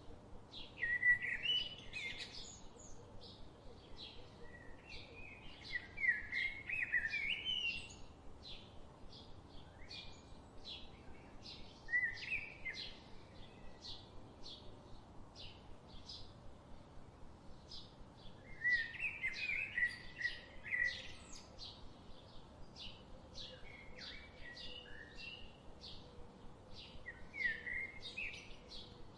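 Songbirds singing: a warbled song phrase comes about every five or six seconds, six times in all, over a steady run of short, high chirps from other birds, with a low hiss of background noise.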